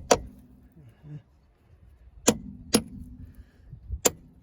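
Hammer striking the front upper control arm of a Passat B5, knocking it down to seat it and its dust boot: four sharp metallic blows, one at the start, a pair in the middle and one near the end.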